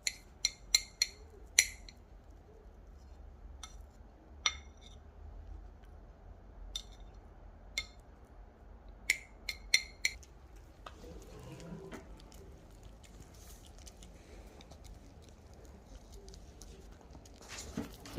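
Sharp clinks of cutlery against a dish, a few in quick succession at the start and another cluster about nine to ten seconds in, then a quieter stretch.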